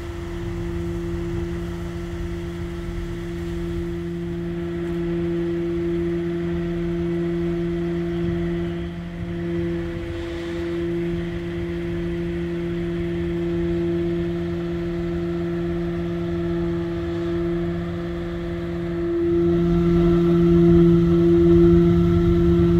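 A work truck's engine running at idle: a steady low mechanical hum with a higher overtone over a low rumble, growing louder near the end.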